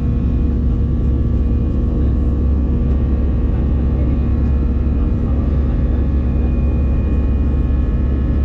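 Airliner cabin noise in flight: a steady, loud low drone of the jet engines and airflow, with faint steady hums above it.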